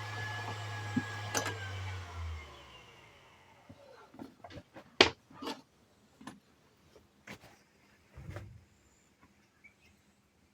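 National PG-201ADCH well pump's electric motor running with a hum and a high whine, then shutting off about two seconds in and winding down, falling in pitch. This is a motor that runs but makes an abnormal noise, per the seller. After it stops come scattered clicks and knocks, the sharpest about five seconds in.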